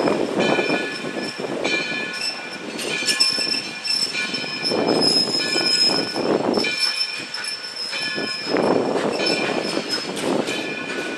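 Black River and Western steam locomotive 60 pulling a passenger train away, its exhaust rushing in loud spells every few seconds, over steady high-pitched squealing from the wheels.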